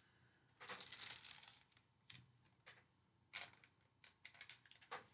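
Faint handling noises at a table: a brief rustle about half a second in, then a few light clicks and taps as grocery items and paper are moved about.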